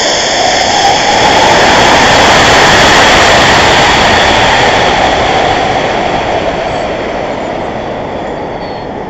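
Steady rushing of air over an Estes model rocket's onboard camera in flight, loud at first and slowly fading.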